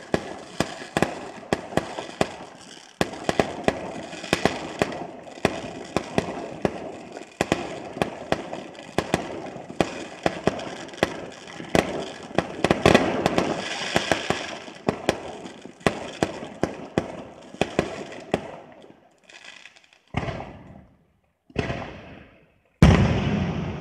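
Fireworks display: a rapid barrage of aerial shell bursts and crackling, several sharp bangs a second over a continuous rumble. It thins out into a few separate bursts with gaps, then one very loud bang with a long rumbling tail near the end.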